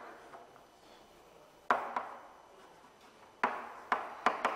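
Chalk tapping and striking a chalkboard as characters are written: a pair of sharp taps about two seconds in, then a quicker run of four near the end, each ringing briefly in the room.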